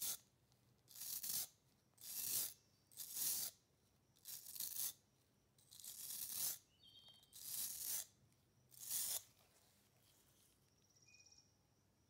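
An abrasive block scraped along a rusty pocket-knife blade to scrub off the surface rust, about seven separate rasping strokes. They stop about nine seconds in.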